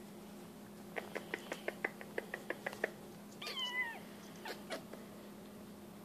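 A parrot making a quick run of about a dozen sharp clicks, then a short pitched call that falls in pitch, followed by two more clicks.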